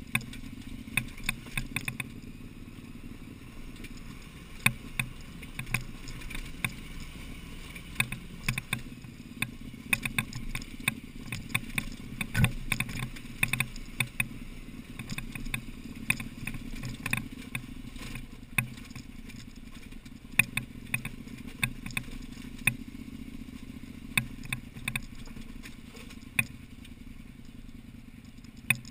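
KTM adventure motorcycle's V-twin engine running steadily at a low pitch, with frequent irregular sharp clicks and clatter as the bike rolls over loose rock and gravel.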